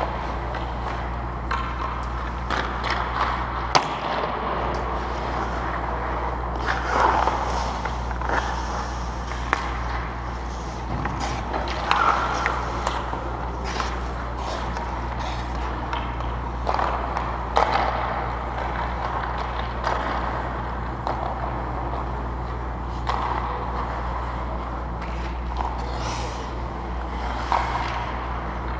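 Hockey skate blades scraping and carving on rink ice in repeated swishes, with sharp clacks of sticks and pucks, over a steady low hum.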